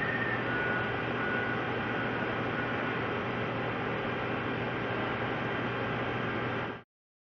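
Hardinge super precision lathe running steadily, a constant machine hum and whir that cuts off abruptly near the end.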